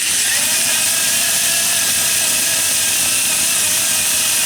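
Electric drive motors and gearboxes of an RC-converted Bruder bulldozer running flat out with a loud, steady whirring whine that starts suddenly. The model is going wild because the radio controller's switches are set to the wrong positions.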